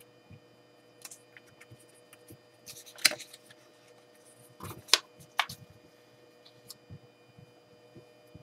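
Sheets of paper being handled and moved on a board: a few short rustles and sharp taps, the loudest about three seconds in and again around five seconds, over a faint steady hum.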